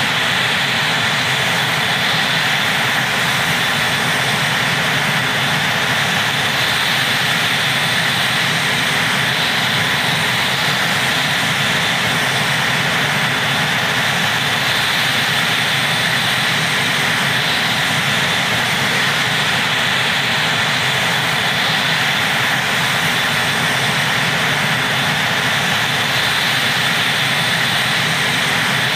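AH-64 Apache helicopter's twin turboshaft engines running steadily: a constant rushing noise with a high, even whine.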